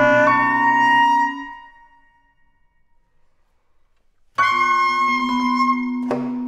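Saxophone, vibraphone and piano trio playing slow contemporary chamber music. A sustained chord fades out about a second and a half in, followed by a pause of over two seconds. A new chord is struck about four and a half seconds in and rings on, slowly fading, with a brief click near the end.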